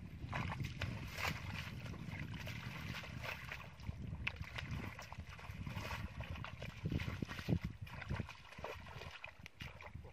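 Bare feet wading through shallow water and soft mud, with irregular squelching and sloshing steps.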